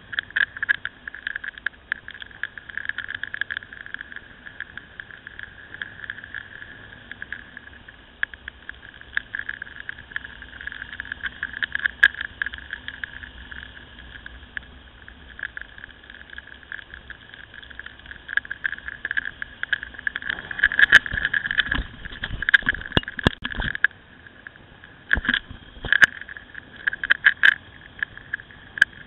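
Ride noise on a moving Ducati Scrambler motorcycle, heard through a camera: a steady, muffled rush of wind and road. Sharp knocks and rattles come through it, much thicker from about twenty seconds in.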